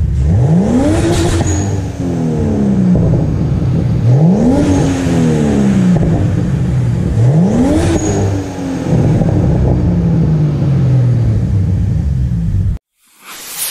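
Turbocharged BMW E46 328i's M52B28TU inline-six, with a GT3530 hybrid turbo and a 3-inch open exhaust with a Magnaflow muffler, revved three times from idle: each rev climbs quickly and falls back slowly, with a brief high whistle at the top of each rev. The sound cuts off suddenly near the end, followed by a short noisy burst.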